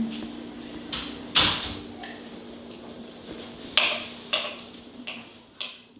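Metal fork clinking against a ceramic bowl while someone eats, about five sharp clinks with the loudest about a second and a half in, over a faint steady hum.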